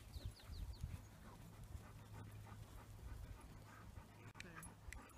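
A dog panting faintly in quick short breaths, over a steady low rumble; a few quick high bird chirps sound at the very start.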